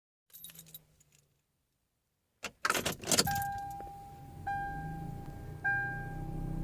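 Car keys jangling as the key is handled at a 1996 Toyota Corolla, then the dashboard warning chime dinging over and over, about once every 1.2 seconds, with a low hum underneath. No engine cranking is heard: the car has a no-start, no-crank fault.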